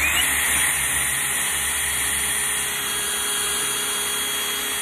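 Cordless drill boring a 5 mm pilot hole straight down into a timber railway sleeper, in plain drill mode rather than hammer. The motor whine rises as the trigger comes on, then runs steadily.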